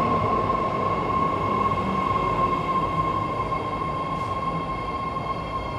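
A nine-car BART Fleet of the Future subway train pulling into the platform and slowing, its wheels and running gear rumbling over a steady high whine, the noise easing gradually as it comes to a stop.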